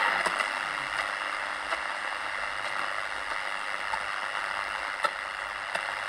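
Static hiss from a Philips Philettina DL-384 transistor radio's small speaker as it is tuned between stations, with a few sharp crackles.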